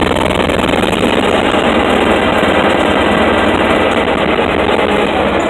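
The 1979 Ford F-350's 390 V8 is held at raised revs, driving the PTO hydraulic pump that raises the dump bed. It makes a loud, steady mechanical noise with a fast rattle running through it. The PTO shaft's worn-out centre hanger bearing lets the shaft flop around.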